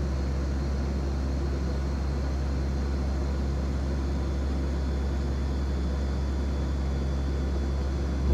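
Steady drone of a CP-140 Aurora's four Allison T56 turboprop engines and propellers, heard from inside the cabin: a deep, even hum with a few steady tones over it.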